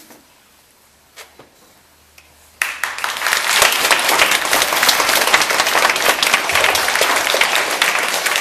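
Audience applauding: dense clapping that starts suddenly about two and a half seconds in after a quiet start, then holds steady.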